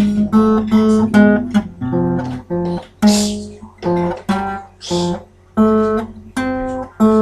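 Acoustic guitar played by ear: a halting run of short single notes and strummed chords, about two a second with brief gaps between them, and a note left ringing near the end.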